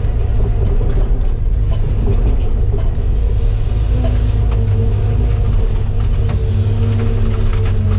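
Cat 313FL excavator's diesel engine running steadily under load as it digs, with a few sharp clicks and knocks scattered through.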